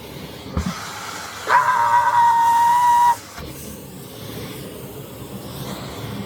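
A vacuum cleaner running on carpet, with a steady high whistle that comes in about a second and a half in and cuts off about a second and a half later. A low bump just before it.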